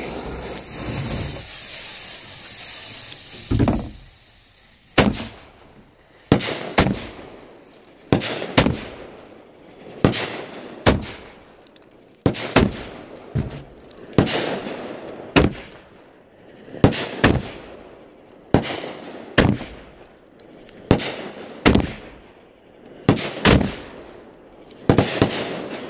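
Aerial fireworks going off shot after shot: a long series of sharp bangs, often in close pairs, about every one to two seconds. It opens with a few seconds of hissing.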